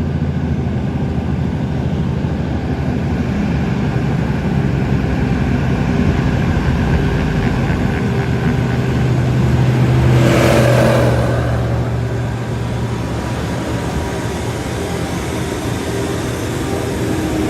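An engine running steadily with a low hum. About ten seconds in, a rushing hiss swells for a second or two and fades.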